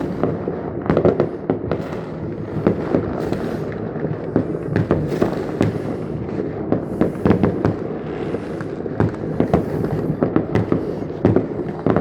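Fireworks going off in a dense, continuous barrage: many overlapping bangs and crackles, with a few louder reports standing out.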